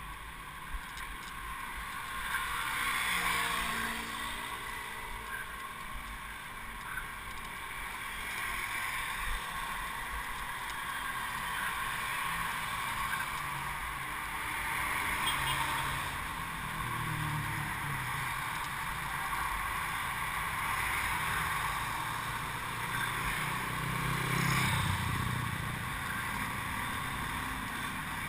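Steady wind and road noise on a bicycle-mounted camera during a folding-bike ride along a paved road, with the engines of passing motor vehicles swelling now and then, most clearly about two-thirds of the way through and again near the end.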